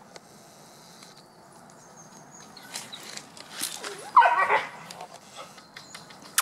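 Puppies at play, with one short yelp from a puppy about four seconds in. A few faint scuffling clicks come before it.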